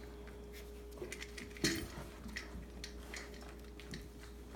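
Chocolate Labrador puppies eating dry kibble: scattered small crunches and clicks of kibble against the feeding dish, with one louder clack about one and a half seconds in, over a faint steady hum.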